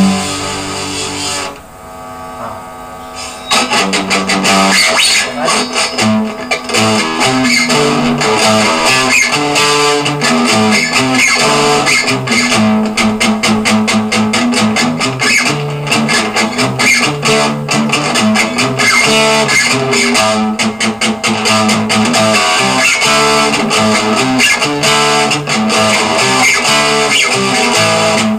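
Acoustic-electric guitar played through a small Signature guitar combo amplifier. A chord rings briefly, then a softer passage, and from about three and a half seconds in a steady run of quickly picked notes and chords.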